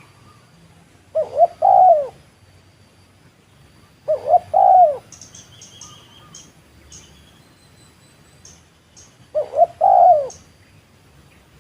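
Spotted dove (tekukur) cooing: three phrases a few seconds apart, each two short coos followed by a longer, bending coo. Faint high chirps of small birds come between the second and third phrases.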